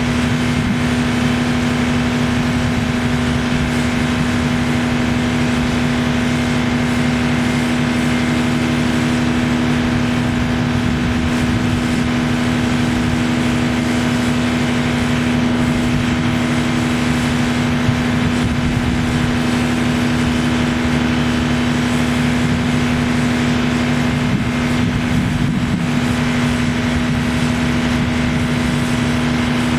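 Terex T560 truck crane's diesel engine running steadily, powering the hydraulics as the boom is lowered, with a strong steady hum.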